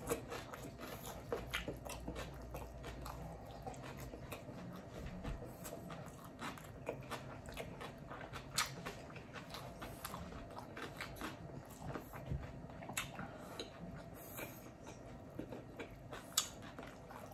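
Close-up chewing of a mouthful of steak and rice, faint wet mouth clicks and smacks scattered all through, a few of them louder.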